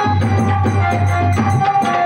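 Loud music with tabla drumming and a shaker rattling over a steady bass line, played through a sound system.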